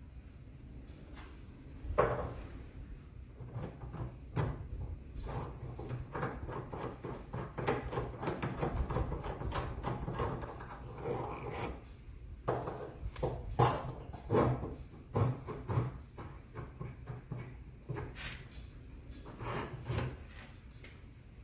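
Irregular knocks, clunks and scraping as the broken halves of a cast bench vise are handled and worked on, with sharper knocks about two seconds in and again past the middle.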